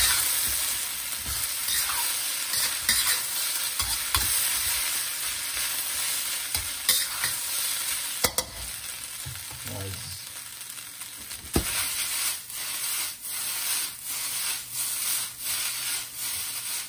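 Fried rice sizzling in a steel wok while a spatula stirs and tosses it, with short scraping knocks of the spatula on the wok, coming in a steady run of strokes in the second half.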